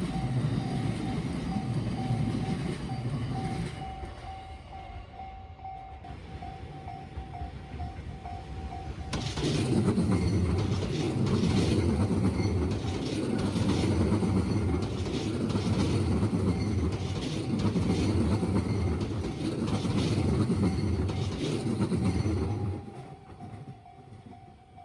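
Japanese level-crossing warning bell ringing in a steady repeating pulse while Tobu Railway electric trains pass. One train's rumble fades out in the first few seconds. About nine seconds in, a second train passes loudly with regular wheel clacks over the rail joints, and its noise drops off sharply near the end while the bell keeps ringing.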